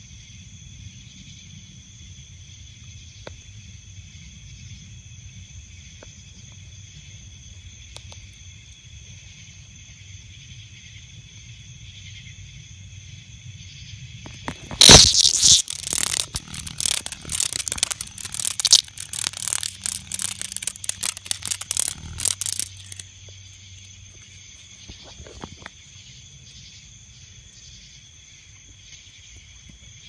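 A disturbed green Neotibicen cicada at close range buzzing loudly and harshly in ragged, crackling bursts. They start abruptly about halfway through and stop after about eight seconds. Under it runs a steady high-pitched chorus of night insects.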